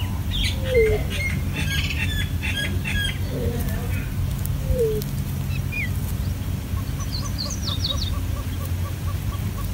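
Birds calling over a steady low hum: a low, falling coo comes about every four seconds, with bursts of high chirps in the first three seconds and again around seven to eight seconds in.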